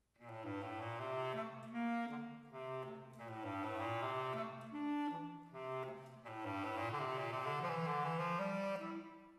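Solo bass clarinet playing an orchestral excerpt in its low register: several phrases of moving notes with short breaks for breath. The last note stops just before the end and rings on briefly in the reverberation of an empty concert hall.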